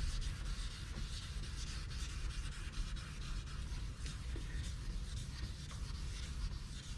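Abrasive sanding disc on a hand pad being rubbed steadily over a wet plastic headlight lens: hand wet-sanding to remove oxidation, over a steady low hum.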